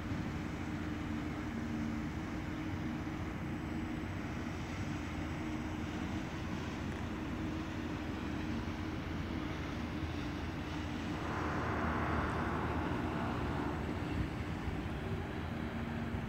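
A steady low motor drone with several held hum tones. About eleven seconds in, a rushing noise swells for a few seconds, then eases off.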